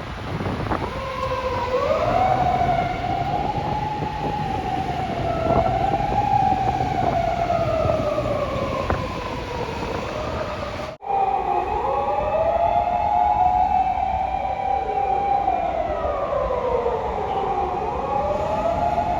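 Emergency-vehicle sirens wailing, rising and falling in slow sweeps. The sound cuts off abruptly about eleven seconds in. It resumes with two or more sirens wailing out of step, their pitches crossing in quicker falling sweeps.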